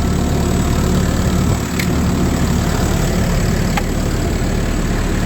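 Diesel engine of a Case construction machine idling steadily, running the air-conditioning compressor while the system draws in refrigerant. Two brief clicks sound about two and four seconds in.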